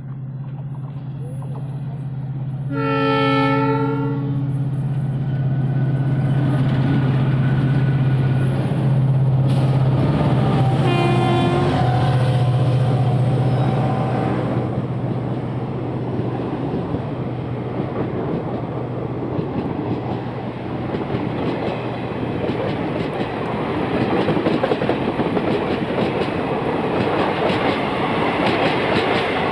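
Two Indian express trains passing on parallel tracks, hauled by a WDP4D diesel and a WAP-4 electric locomotive: a locomotive horn blast about three seconds in and a second horn blast around eleven seconds, over a steady low diesel engine drone. The rumble and clatter of passenger coaches rolling past builds from about six seconds in and carries on to the end.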